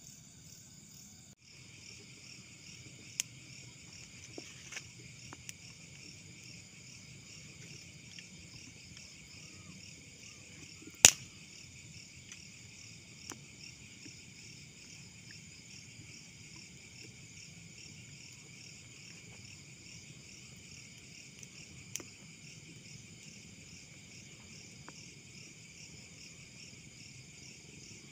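Steady chorus of crickets, a high, finely pulsing trill. A few sharp clicks cut across it; the loudest comes about eleven seconds in.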